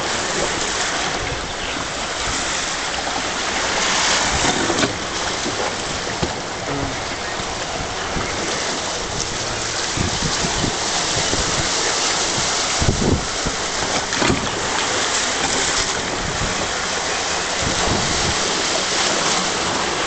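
Churning whitewater rushing through a concrete rapids-ride channel, heard from the raft riding it, a steady loud rush with a few low thumps near the middle.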